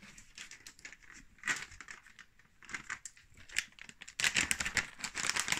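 Bag of Dreamies cat treats being handled, rustling and crinkling, getting louder and busier about four seconds in as it is opened.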